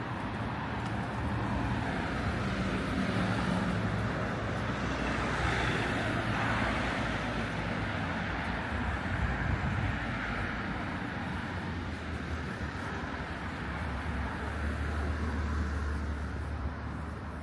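Street traffic: vehicles passing, a continuous noise of tyres and engines that swells about six seconds in, with a deeper engine hum near the end.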